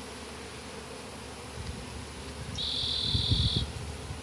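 Honey bees from an opened hive buzzing in a steady drone. About two and a half seconds in, a high, steady tone lasts for about a second.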